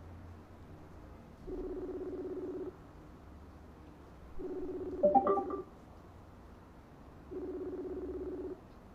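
Telephone ringback tone, the ringing heard by a caller while the call is not yet answered: a low, buzzy tone about a second long, sounding three times roughly every three seconds. A brief, louder sound cuts in over the second ring.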